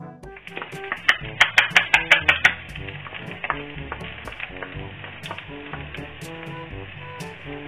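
Minced garlic sizzling steadily in hot fat in a small nonstick frying pan. About a second in, a wooden spoon clicks sharply several times in quick succession as it scrapes the garlic off a bowl into the pan.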